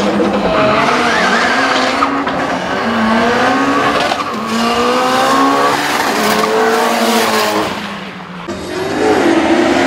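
Two drag-racing cars launching off the start line and accelerating hard down the strip. Their engines rise in pitch and drop back at each of several gear changes, then fade away near the end as another engine starts up.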